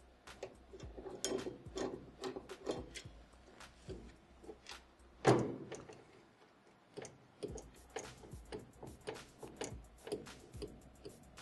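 Hand screwdriver and metal printer parts: a run of small irregular clicks and ticks as screws are worked out of the carriage rail of an ENCAD CADJET 2 large-format printer, with one louder knock about five seconds in.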